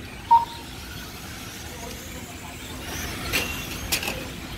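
Radio-control race trucks running around the track under a steady background noise, with a short high beep about a third of a second in and a few sharp clicks about three to four seconds in.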